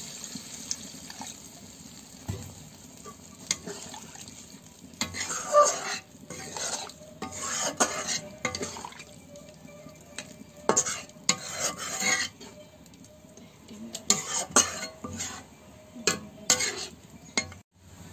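Metal spatula stirring and scraping chicken pieces in an iron kadai, with a sizzle at first that dies away as liquid is added for the gravy. After that come repeated uneven scrapes and knocks of the spatula against the pan as it stirs the meat through the thin curry.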